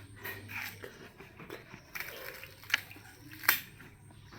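A person biting and chewing juicy watermelon: soft wet mouth sounds with a few sharp clicks, the loudest about three and a half seconds in.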